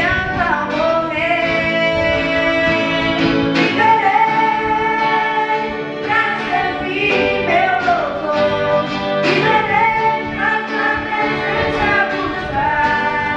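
Live gospel worship song: a girl sings the lead into a microphone, backed by electric guitar, acoustic guitar and bass guitar through a PA.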